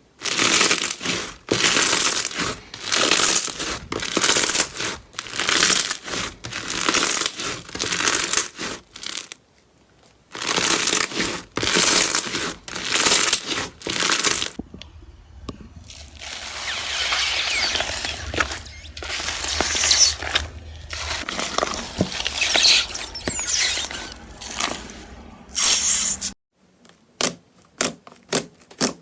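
Slime being squeezed and pressed by hand, giving crackling, crinkling squishes about once a second, then a longer run of continuous crackling. Near the end come quick, evenly spaced sharp clicks.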